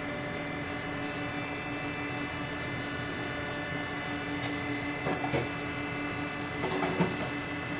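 Steady motor hum, with a few short clattering knocks about five and seven seconds in.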